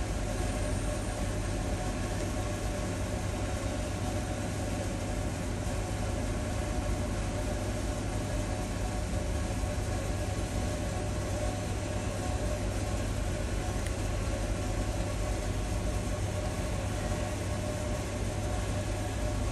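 Steady low mechanical hum with a few unchanging tones above it, like a running engine or machine, holding level throughout.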